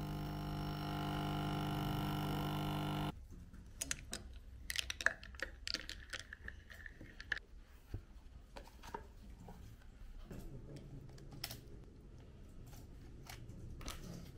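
Background music for about three seconds, cutting off abruptly. Then quiet small-room desk sounds: scattered light taps, clicks and handling noises from hands on a tablet, a glass and a phone.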